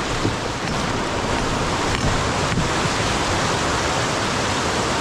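Whitewater rapids rushing around a canoe: a steady, loud wash of churning river water.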